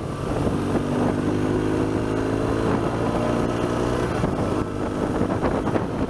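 BMW R1200GS boxer-twin engine running steadily as the motorcycle rides on, with wind on the microphone. About four seconds in the engine's steady note gives way to a rougher rush of wind and road noise.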